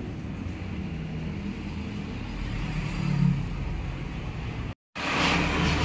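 Low, steady rumble like engine or road traffic noise, broken by a sudden moment of total silence near the end.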